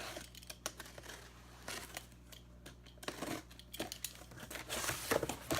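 Shipping package being opened by hand: packing tape cut and torn, with crinkling and rustling of the packing and scattered clicks and knocks that come thicker and louder near the end.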